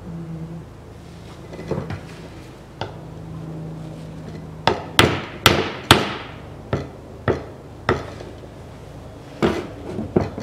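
Hammer knocking a tube into the nozzle of a Chevrolet Epica's cracked plastic coolant expansion tank. About a dozen sharp, irregular taps; the hardest are four quick blows around the middle.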